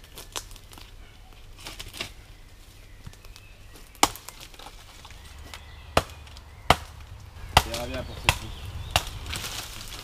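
Branches being chopped or knocked: about six sharp woody knocks at uneven intervals in the second half, after a few lighter clicks and rustles.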